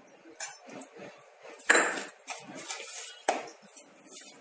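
A few clinks and knocks of dishes against a mixing bowl, the loudest about a second and a half in, with soft rustling as hands start mixing chopped fenugreek leaves and flour for paratha dough.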